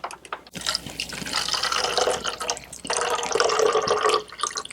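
Water sounds from a Bruder toy fire engine's water reservoir as its hand pump is worked, with two short breaks. The truck looks broken, with a hole in the reservoir, so no water squirts from the hose.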